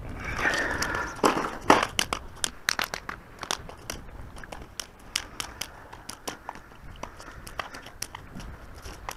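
A small dolphinfish (mahi-mahi) flapping on a concrete pier, its body and tail slapping the stone in an irregular run of sharp slaps, loudest in the first two seconds.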